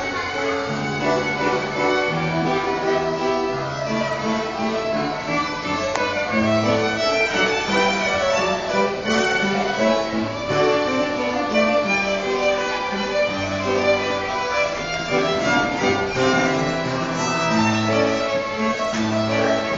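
Violin playing a melody of held notes, with a lower accompaniment underneath.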